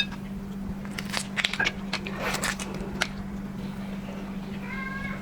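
Shellfish shell being cracked and peeled by hand: scattered crackling clicks and crunches over a steady low hum, with a brief squeak near the end.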